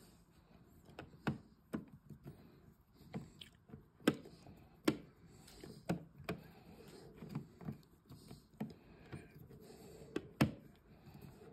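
Scattered small clicks, taps and scrapes of a screwdriver driving the screws of a plastic three-gang switch cover plate, with sharper clicks about four and five seconds in and again near the end.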